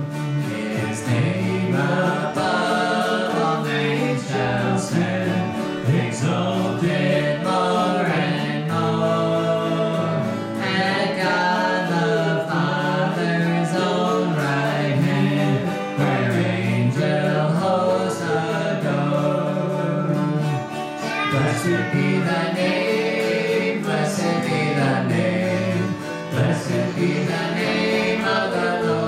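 Two men singing a gospel song, accompanied by acoustic guitar and hollow-body electric guitar, with a steady bass line underneath.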